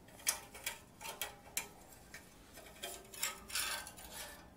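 Light metal clinks and taps as exhaust clamp and bracket parts are handled against the motorcycle's exhaust link pipe, about two a second, with a couple of short metallic rings near the end.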